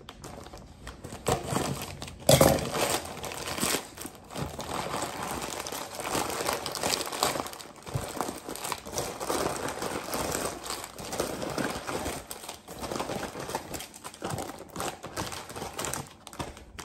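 Plastic mailer bag being cut open with scissors and pulled apart, crinkling throughout, with one loud sharp crackle a little over two seconds in.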